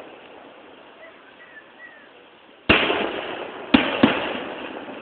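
Fireworks shells bursting in the sky: three sharp bangs, the first a little over halfway in, then two close together about a second later, each trailing off in a fading rumble. Recorded through a phone's microphone, which cuts off the high end.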